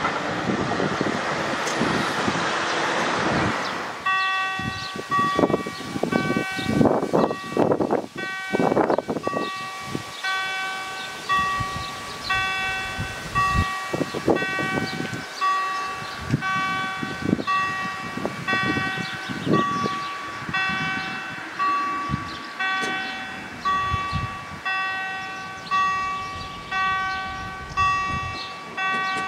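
A passing freight train's rumble fades out about four seconds in. Then a German level-crossing warning bell starts ringing, one ringing strike roughly every second, signalling that the crossing is closing for an approaching train.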